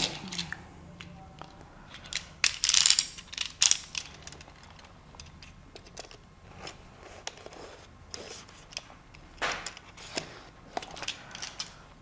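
Hands opening a smartphone's cardboard retail box: scattered clicks, scrapes and rustles of the packaging. The handling is busiest about two to four seconds in and again near ten seconds.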